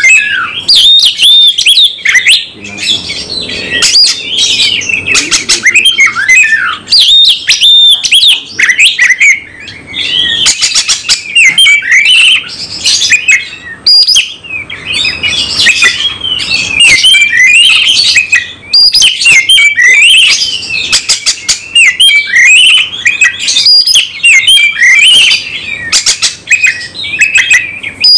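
Caged Oriental magpie-robin (kacer) singing loudly and without letup: a fast, varied song of sweeping whistles mixed with harsh chattering notes, with only brief pauses. This is the aggressive, fighting-mood ('tarung') singing that keepers prize.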